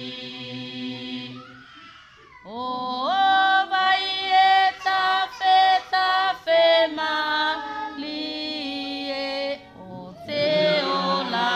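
Tuvaluan church hymn sung by a youth choir. The singing thins out about two seconds in, then a high voice line comes in with an upward slide and sings a run of short held notes, and fuller singing returns near the end.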